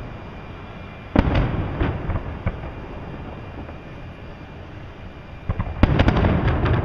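Aerial firework shells bursting: a sharp bang about a second in and a few smaller pops, then a quick cluster of bangs near the end, with low rumbling in between.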